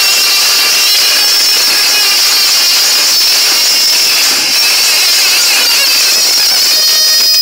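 Loud dance music blaring from PA loudspeakers, coming through harsh and distorted as a steady buzz with a wavering high melody on top, clearer near the end.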